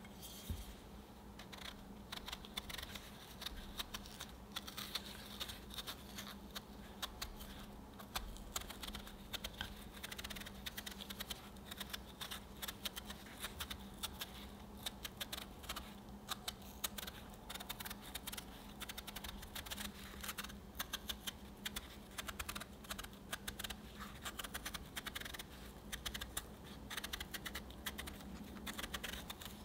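Small knife peeling the skin off a firm peach held in the hand: a dense, uneven run of small crisp cutting and scraping ticks as the blade works around the fruit.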